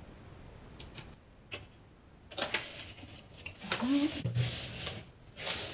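Unboxing packaging being handled: a few light clicks, then from about two seconds in a run of rubbing and scraping as the large polystyrene foam insert is lifted out and moved.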